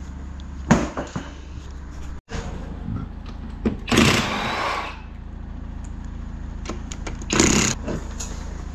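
Cordless impact wrench rattling off a UTV's wheel lug nuts in two short bursts: one about four seconds in, nearly a second long, and a shorter one about three seconds later. A sharp thump with a few clicks comes near the start.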